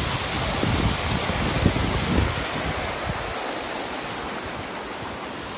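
Snowmelt water cascading down a rocky slope: a steady rush of water. Wind gusts on the microphone in the first couple of seconds.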